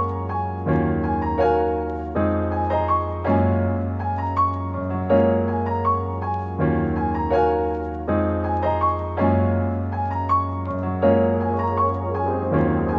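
Background piano music: a steady run of repeating notes over held low bass notes.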